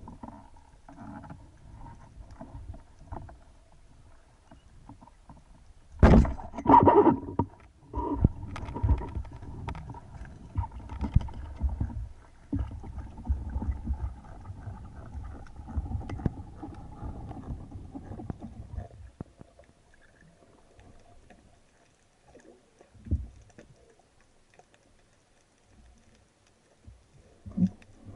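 Water noise picked up by an underwater camera on a speargun as the spearfisher swims: low sloshing and rumbling with clicks. There is a loud sudden burst about six seconds in, and a single thump later after it quiets.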